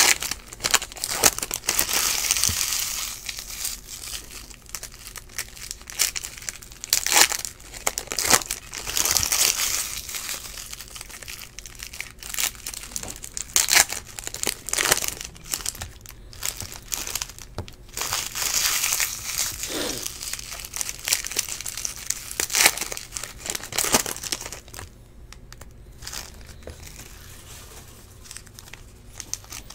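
Foil wrapper of a 2017 Topps Stadium Club baseball card pack being torn open and crinkled by hand, in irregular bursts of crackling that die down near the end.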